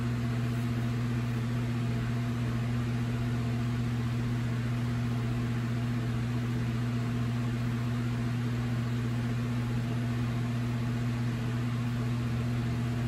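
Steady low hum over a constant even hiss, with no change throughout.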